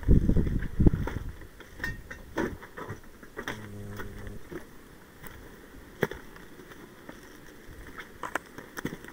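Footsteps and body movement through dry scrub: scattered crackles and snaps of twigs and leaves, and branches brushing past, starting with a loud rumble of movement on the microphone. A short low hum sounds about four seconds in.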